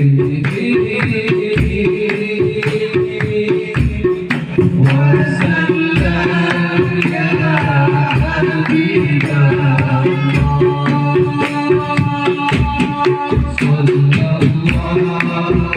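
Sholawat devotional music: drums keep a steady beat with a deep stroke a little under once a second and quicker hand hits between, and a sustained melody line comes in about five seconds in.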